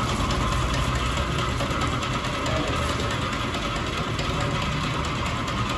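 A motor running steadily, with aluminium foil crinkling as it is folded and pressed shut by hand.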